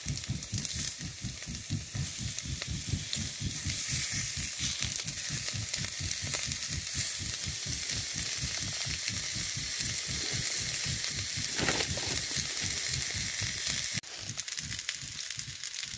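Diced potatoes and sliced onion sizzling as they fry in a pan.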